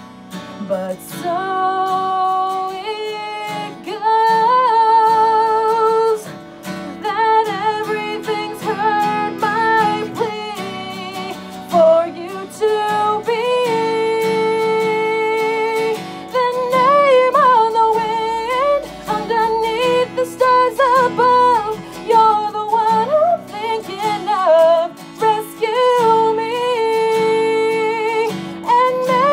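A woman singing long held notes with a wavering vibrato, accompanied by a strummed acoustic guitar.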